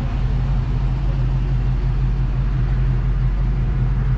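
Car engine idling steadily, a low, even running sound.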